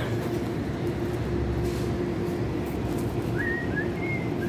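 Steady supermarket background hum with a constant low drone. About three seconds in, a few short, high notes glide up and down, like someone whistling.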